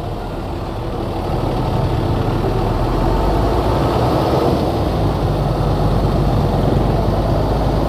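Motorcycle engine running steadily while riding in slow traffic, under a broad rush of wind and road noise on the phone's microphone.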